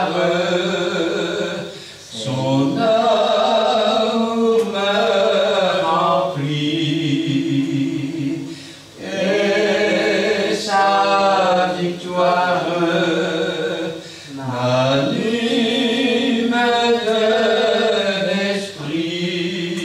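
A hymn sung in slow, held phrases, with short breaks between phrases about every six or seven seconds.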